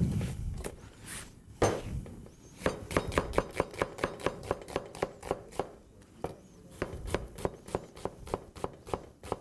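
Chef's knife mincing an onion on a plastic cutting board: a couple of heavier knocks, then a quick, even run of blade strikes on the board, about four or five a second, with a short pause near the middle.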